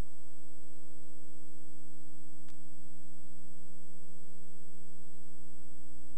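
Steady electrical hum with an even hiss, from the transfer of a silent film rather than anything in the picture; one faint click about two and a half seconds in.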